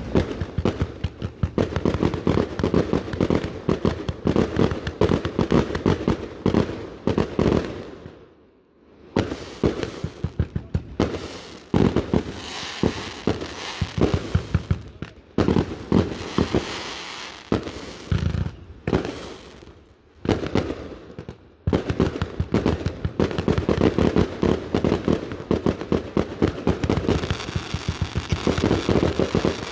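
Fireworks display firing in rapid volleys of loud bangs, with stretches of crackling, and brief lulls about eight seconds in and again about twenty-one seconds in.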